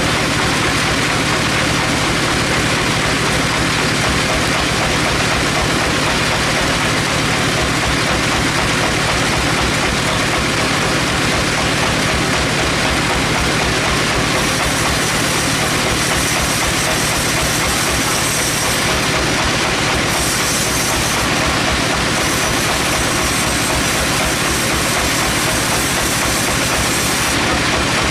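Sawmill machinery running with a steady, loud mechanical din; a higher hiss comes in about halfway through and lasts until near the end.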